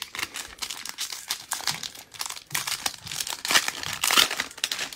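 Foil wrapper of a Panini Mosaic baseball card pack being torn open and crinkled by gloved hands: a dense run of crackles, loudest near the end.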